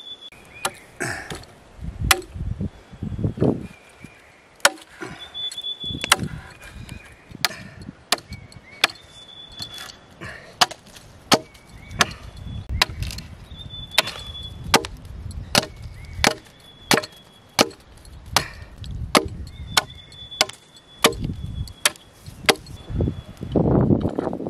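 Repeated chopping of a wooden tree trunk with a long-bladed knife: sharp blows of steel biting into wood, about three every two seconds.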